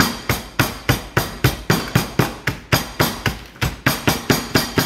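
Nutter Butter cookies being crushed for a cheesecake crust, pounded with a cup in quick, steady knocks about four times a second.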